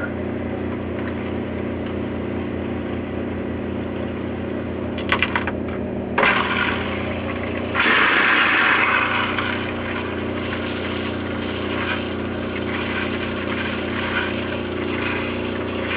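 An RV water pump motor hums steadily while tap water pours from the bathroom sink faucet into a plastic basin. The splashing grows louder about six seconds in, with a couple of light clicks from the faucet handle just before.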